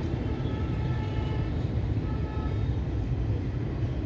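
Passenger train's ICF coaches rolling past on the rails, a steady rumble of wheels on track, with faint brief high squeals now and then.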